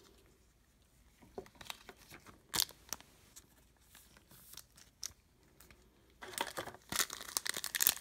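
Foil wrapper of a 2016 Panini Phoenix football card pack crinkling and tearing as it is opened, starting about six seconds in. Before that come a few soft clicks and rustles of cards being handled.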